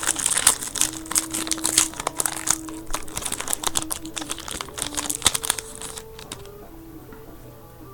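Trading card pack wrapper being torn open and crinkled, a dense crackling that dies away about six seconds in, with faint background music underneath.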